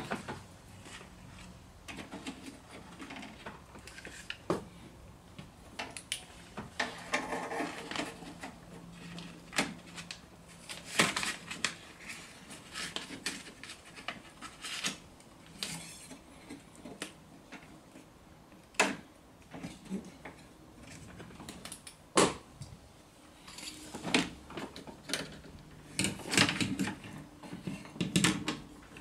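Irregular clicks, knocks and light rattles of metal and plastic lock parts being handled and pushed into place inside a car door while the lock and door-handle linkage rod are refitted, with a few sharper knocks late on.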